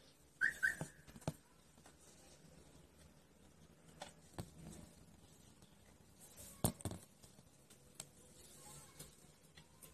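Faint handling sounds of an Oppo A55 smartphone being turned over on a tabletop: scattered light taps and knocks, the loudest about two-thirds of the way through, with a brief high double chirp about half a second in.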